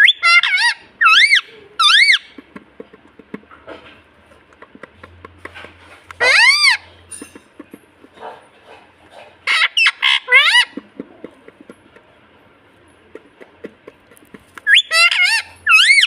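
Green parakeets screeching: loud, harsh calls that arch up and down in pitch, coming in four clusters of one to several calls. Between them, faint light clicks from the beaded chew toy being worked in a parakeet's beak.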